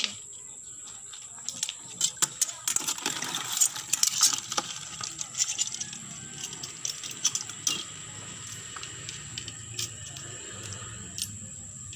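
A metal spoon and knife clicking and scraping against crab shells over a plastic bucket as crabs are cleaned: a dense run of sharp clicks and clatter in the first few seconds, then sparser clicks. A steady high insect drone runs underneath.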